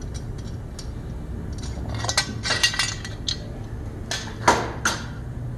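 Metal clinking and clattering as the screws and side cover plate come off a V55 diesel engine's fuel injection pump and are set down among tools on the workbench: a cluster of sharp clinks about two to three seconds in, and a few more near the end.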